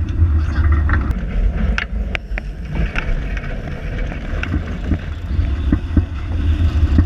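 Wind buffeting the microphone of a deck-mounted action camera on a J80 racing sailboat under way, a heavy low rumble with water rushing along the hull. A few short clicks and knocks from the deck cut through.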